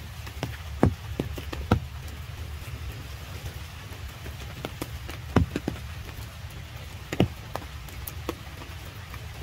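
Rain falling, with big drops landing close by as irregular sharp taps, a few of them much louder, over a steady low rumble.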